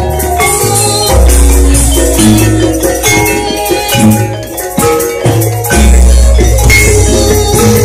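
Javanese gamelan ensemble playing loudly: bronze-keyed saron and demung metallophones struck hard, with bonang kettle gongs and kendang drums, and deep long-ringing low strokes about a second in and again near six seconds. The set is being sound-checked, its thick keys struck hard.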